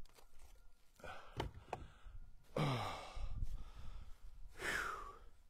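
A man sighing with effort while loading firewood: a low sigh with a falling voice a little after halfway, and a second, higher falling sigh near the end. A couple of short knocks about a second in.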